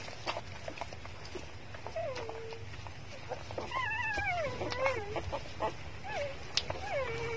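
Newborn puppies squealing and whining while nursing: about four short, high, wavering cries that fall in pitch, the longest in the middle, with small clicks in between.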